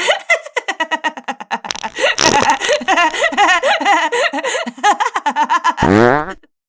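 Recorded laughter: rapid runs of short laughing pulses, several a second. Near the end comes a brief rising sound, then it cuts off suddenly.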